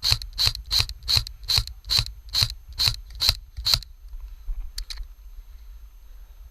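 Airsoft electric gun (AEG) firing single shots in quick succession: about ten sharp clacks at roughly two and a half a second, stopping a little before halfway, then two faint clicks.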